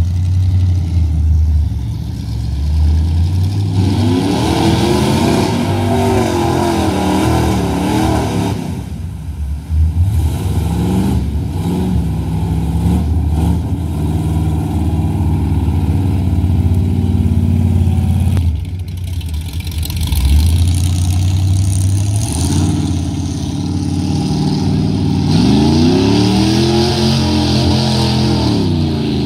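Pickup truck engines revving hard in a mud bog, the pitch climbing and falling again several times as the trucks power through deep mud.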